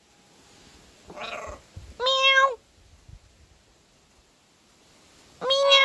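Blue-and-gold macaw giving loud mimicked animal calls: a short rough call about a second in, then two loud calls, each about half a second long and held at a steady pitch, one about two seconds in and one near the end.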